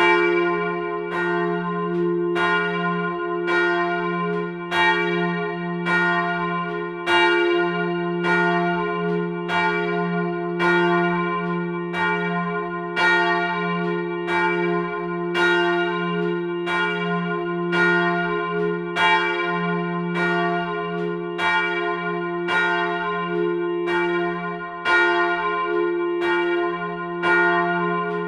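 Several church bells ringing together, their strikes overlapping at about one and a half to two a second, over the bells' steady low hum.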